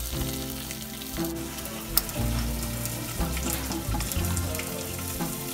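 Thinly sliced onions frying in hot coconut oil in a clay pot: a steady sizzle with scattered sharp crackles.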